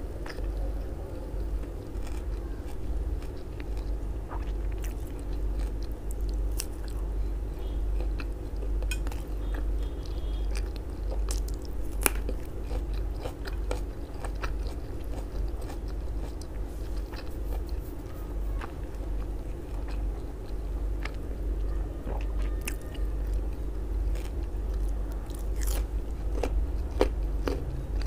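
Close-miked chewing of grilled sausage, with scattered wet mouth clicks and small crunches, over a steady low hum.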